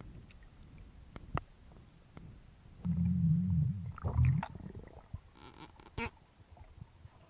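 Muffled underwater sound picked up by a freediver's camera. Scattered sharp clicks and knocks, then a loud low rumble about three seconds in that lasts about a second and a half, and a short higher rattle just before a click near the end.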